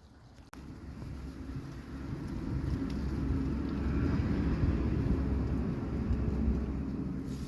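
A motor vehicle passing: a low engine and road rumble that builds over several seconds, peaks past the middle, then fades.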